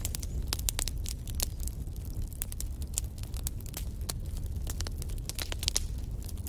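Wood fire burning in a fireplace, with frequent sharp, irregular crackles and pops over a steady low rumble.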